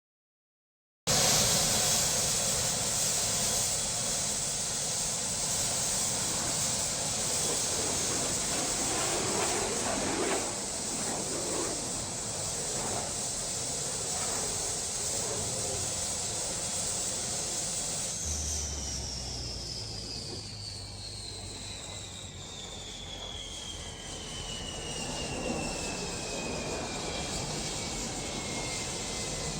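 Jet aircraft sound effect: after about a second of silence a steady roaring hiss sets in, and about two-thirds of the way through a high whine begins to fall slowly in pitch as the aircraft passes.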